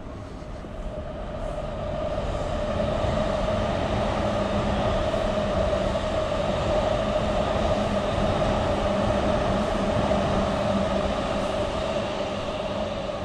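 Electric train passing: a steady rumbling hum with a few held tones that grows louder over the first couple of seconds, holds, and eases off near the end.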